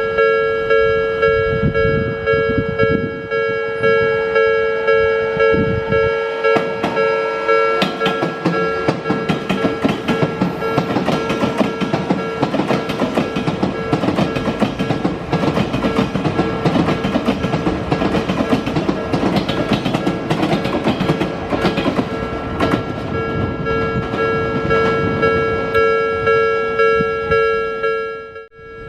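Railway level-crossing warning bell ringing in a steady repeating rhythm while an Odakyu electric train passes through the crossing. From about 4 to 22 seconds the rushing wheel and motor noise of the train largely covers the bell, with a faint rising whine early in the pass.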